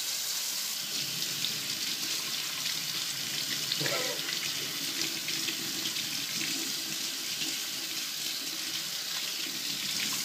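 Tap water running steadily into a sink, rinsing a phone held under the stream.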